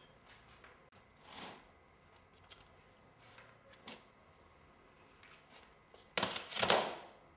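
Handling of baskets: scattered light clicks and brief rustles, then a louder rustling scrape lasting under a second, about six seconds in, as a mesh basket is lifted over a plastic laundry basket.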